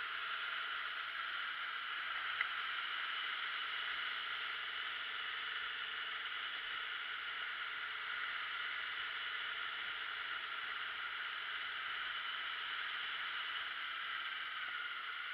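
Steady rushing wind and road noise picked up by a camera riding on a moving motorcycle, with one sharp click about two and a half seconds in.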